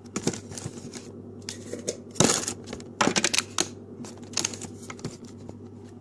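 Packets and jars clattering against a refrigerator's clear plastic shelves and bins as they are rummaged through and one is pulled out, an irregular run of quick clicks and knocks, busiest a little past the middle.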